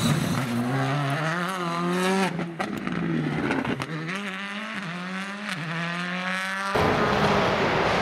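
Škoda Fabia rally car accelerating hard, its engine pitch climbing again and again through several quick upshifts, with a short dip at each shift, about two and a half seconds in and near five and a half. Near the end the sound cuts off suddenly and is replaced by the louder, rougher engine and road noise of another rally car.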